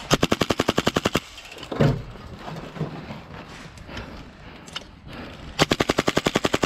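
Airsoft gun firing two full-auto bursts of about a second each, a rapid even rattle of shots about eleven a second, one at the start and one near the end. A single short loud sound comes about two seconds in.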